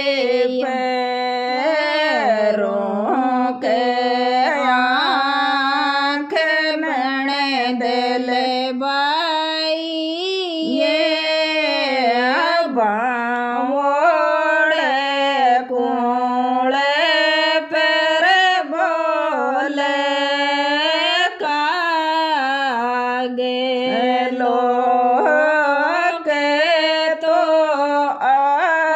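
A woman singing a Tejaji geet, a Rajasthani devotional folk song, in one continuous melodic line with long, wavering held notes.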